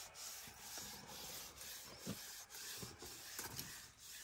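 African elephant right up against the camera, making a faint rustling noise that comes in pulses about twice a second, with a few soft low knocks.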